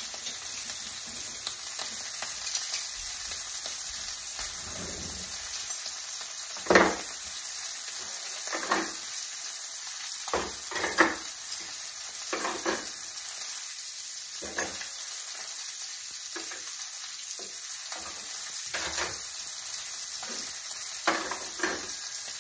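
Steaks frying in oil in a pan over medium heat, a steady sizzle, with repeated clinks and knocks of kitchen utensils being handled in an open drawer.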